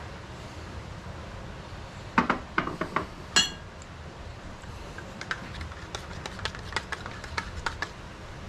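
A few clicks, then a single ringing clink as a small ceramic bowl is set down on a metal counter, followed by a scatter of light clicks and taps of kitchen items being handled.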